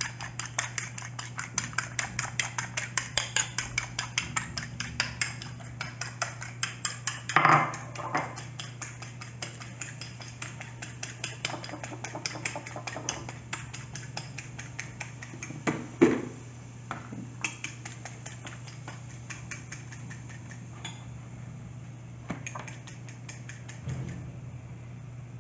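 A metal fork beating eggs in a ceramic bowl, clicking against the bowl rapidly, about four to five times a second, then slowing and thinning out after about halfway. Two louder knocks come about 7 seconds in and about 16 seconds in.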